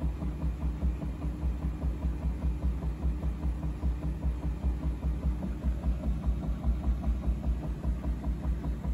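Bosch washing machine on its spin cycle: a low, evenly pulsing thrum at about six beats a second. The machine is new, and the owner fears a bearing fault or wonders whether a light load is causing the noise.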